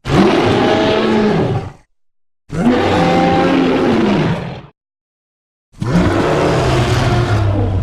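Tyrannosaurus rex roar sound effects: three roars, each about two seconds long, with dead silence between them.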